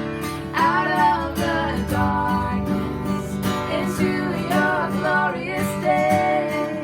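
A worship song: acoustic guitar strumming under a sung melody.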